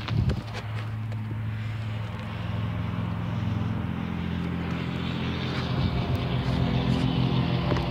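Steady engine drone, growing slightly louder in the second half, with a brief low thump just after the start.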